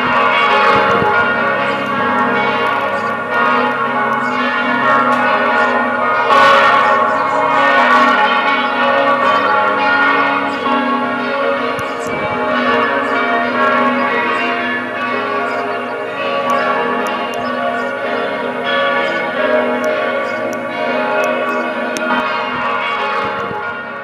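Several church bells pealing together from the belfry, overlapping tones ringing continuously; the peal begins to fade away near the end.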